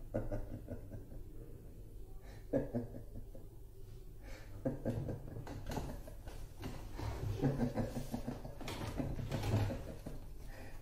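Low steady room hum, then from about four and a half seconds in, the crinkle and rustle of magazines and papers being handled, with a man's quiet chuckling.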